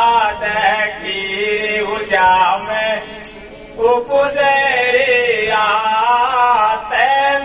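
Male voices singing a devotional Hindi bhajan in long, drawn-out held notes without clear words, with a short lull about three seconds in.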